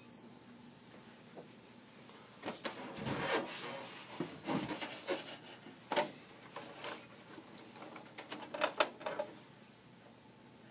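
Hardware being handled inside a Dell PowerEdge 840 server during memory installation: scattered clicks, knocks and short rattles of plastic and metal parts, coming in clusters from a couple of seconds in, with the sharpest clicks near the end.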